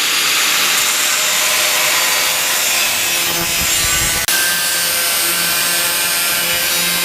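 Power tool cutting through a steel exhaust flange to remove it, a loud, steady hiss of metal being cut that breaks off for an instant about four seconds in.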